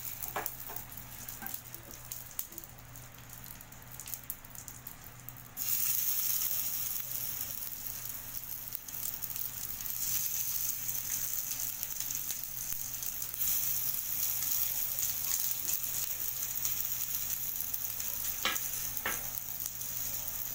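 Stuffed snake gourd pieces sizzling as they shallow-fry in a little hot oil in a frying pan. The sizzle jumps louder about six seconds in, and again around ten and thirteen seconds, as more pieces go into the pan; two light clicks near the end.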